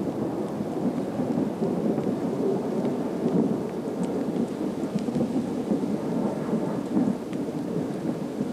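Thunder rolling on in a long, continuous low rumble that swells and fades unevenly.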